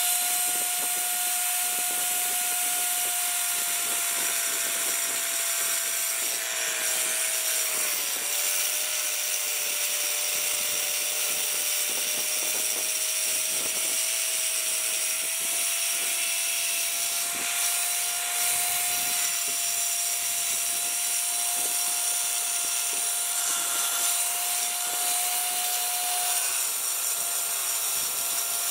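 Dremel Saw-Max compact saw with a diamond blade cutting through a wetted ceramic mosaic tile sheet: a steady high motor whine over a gritty grinding hiss. The whine sags briefly in pitch about eight seconds in and again near the end as the blade takes load.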